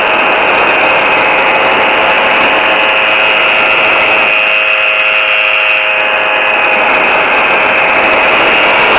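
Motorised hang glider's engine running steadily in flight, a constant drone under the rush of wind on the microphone.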